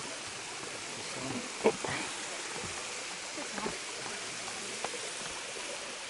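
Small waterfall pouring into a rock pool, a steady rush of water, with a sharp knock about a second and a half in.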